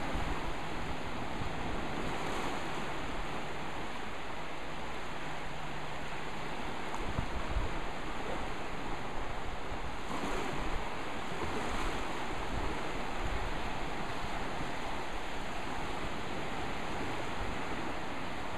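Small waves breaking and washing in over a shallow sandy shore, a steady surf wash that swells a little now and then, with wind rumbling on the microphone.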